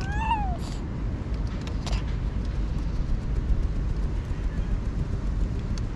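A cat gives one short meow that rises then falls, right at the start, over a steady low rumble of wind on the microphone. A couple of sharp clicks follow within the next two seconds, then faint light ticking.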